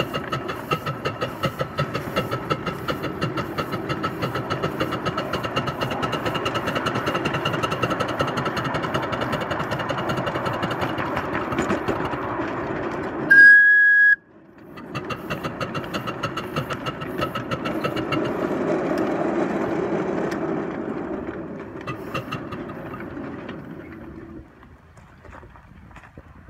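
Garden-scale 2-6-0 Mogul locomotive running along its track, with a fast, regular beat and a steady high whine. About halfway through it gives one short, loud whistle blast. The running sound then picks up again and fades away near the end as the locomotive slows.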